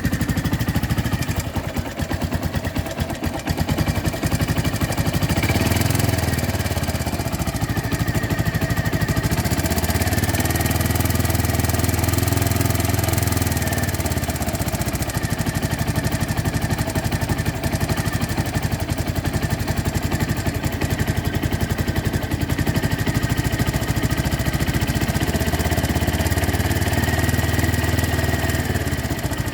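Engine running at idle with a rapid, even ticking. Its low note grows stronger a few times.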